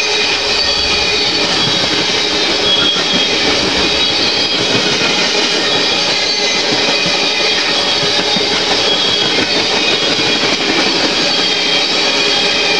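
Tank cars of a CPKC freight train rolling past at close range: a steady, loud rumble and clatter of steel wheels on the rails, with thin high squealing tones from the wheels coming and going over it.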